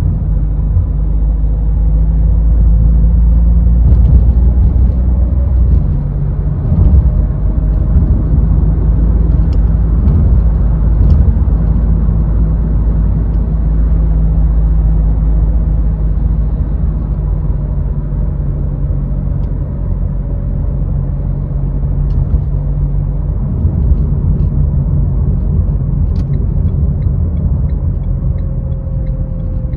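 A car driving in city traffic: a steady low engine and road drone whose pitch shifts a couple of times as the car changes speed.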